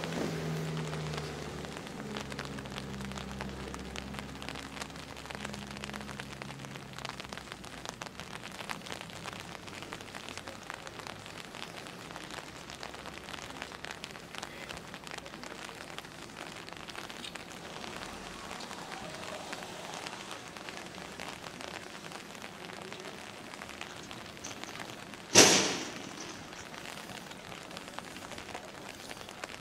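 Steady patter of light rain. A low engine sound fades away over the first several seconds, and one sharp bang cuts through about 25 seconds in.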